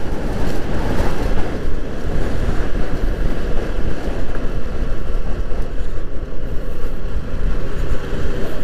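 Wind buffeting the rider's microphone at road speed on a SYM VF3i 185 scooter, with the scooter's single-cylinder engine running steadily under the rush.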